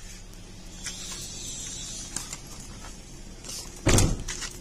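A single loud thump about four seconds in, over a steady low hum.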